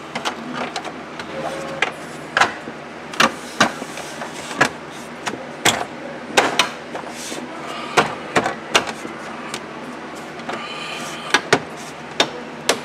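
Ford Crown Victoria dashboard trim panels being pressed and tapped back into place by hand, a string of irregular sharp plastic clicks and knocks as the trim clips seat.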